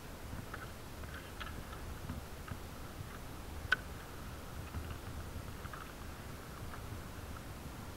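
ATV riding in snow, heard muffled: an uneven low rumble with scattered light ticks and rattles, and one sharper click a little past halfway.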